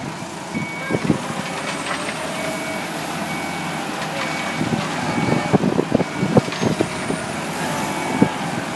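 Reversing alarm on a Fiori DB460B self-loading concrete mixer, beeping steadily a little faster than once a second over the running engine. Irregular knocks and clatter come through, mostly in the second half.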